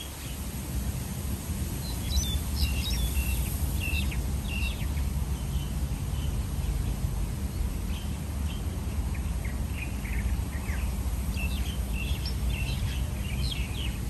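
Small birds giving short, high chirps in scattered bursts over a steady low rumble.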